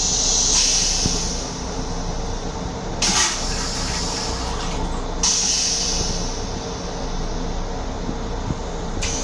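Metro-North M7 railcar toilet flushing: rinse water sprays into the stainless-steel bowl with a hiss that comes and goes. Two short, louder rushes of noise come about three seconds in and near the end, over the steady rumble of the railcar.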